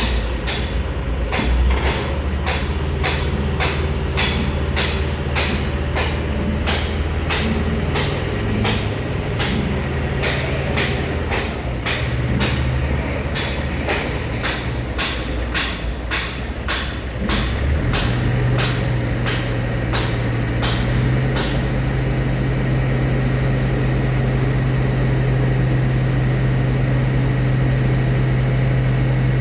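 Heavy diesel engine of construction machinery running steadily, then picking up to a higher, steady speed about 17 seconds in. Over it come sharp regular clicks or knocks, about two a second, which stop about 21 seconds in.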